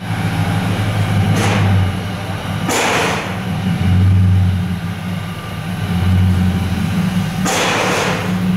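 Infiniti QX80's 5.6-litre V8 idling with a deep, steady exhaust drone through its reworked exhaust. The drone swells in loudness a few times, and a few short rushes of hiss pass over it.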